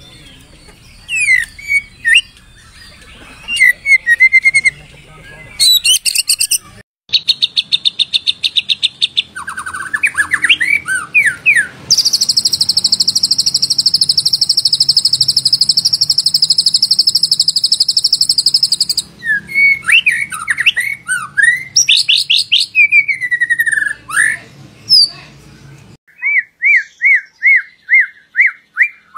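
White-rumped shama song in an edited recording: varied whistled phrases and quick trills, a long high buzzing rattle for about seven seconds in the middle, then falling notes and, near the end, a run of repeated notes about three a second. The sections change abruptly at cuts.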